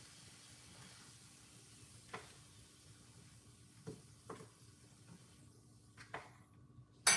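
Plantain frying in hot oil in a pan, a faint steady sizzle, with a few light clicks of handling along the way. A loud knock comes right at the end.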